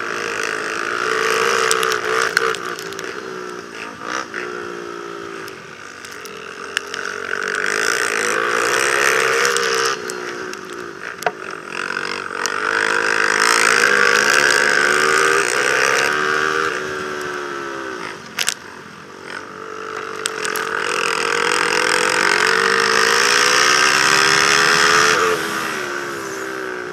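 Racing quad (ATV) engine heard from on board, revving up and holding high, then falling away, in several long cycles as it runs the straights and backs off for the turns.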